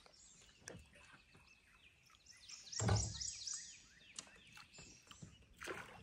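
Small birds chirping, a run of short, high, falling notes repeated again and again, with one dull knock about three seconds in.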